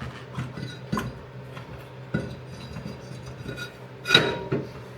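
Brake rotor being fitted back onto the rear hub over the wheel studs: a series of separate metallic clinks and scrapes, the loudest a ringing clank about four seconds in.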